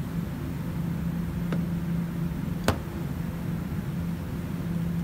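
Steady low mechanical hum of workshop machinery, with a faint click about a second and a half in and a sharper knock a little under three seconds in, as a metal spray can is set down on a plastic fuel tank.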